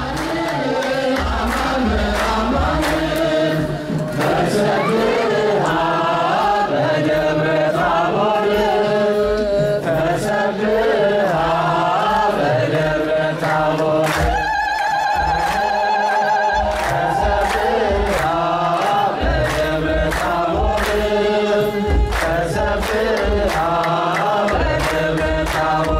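Ethiopian Orthodox Tewahedo congregation and choir chanting a hymn together over a steady beat of strikes, with a high wavering voice rising above the singing about two-thirds of the way in.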